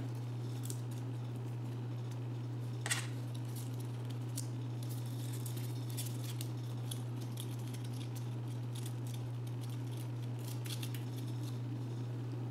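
Light crinkling and ticking of cardstock flower blossoms and leaves being handled and bent into place, with one sharper click about three seconds in, over a steady low hum.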